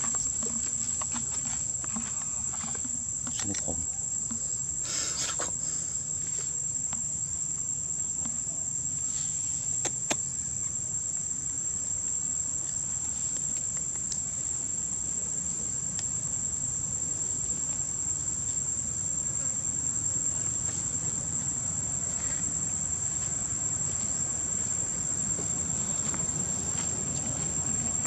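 Insects droning in chorus: one steady, unbroken high-pitched tone, with a few faint ticks and rustles in the first few seconds.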